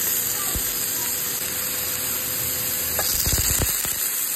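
Pieces of sausage sizzling in hot oil in a cast-iron skillet, a steady loud hiss. A few soft low bumps come a little past three seconds in.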